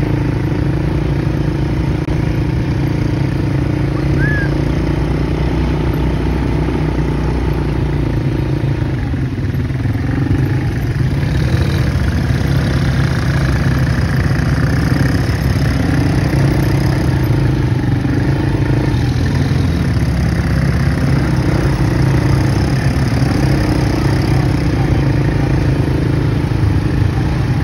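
ATV engine running at low revs, the engine note rising and falling a little.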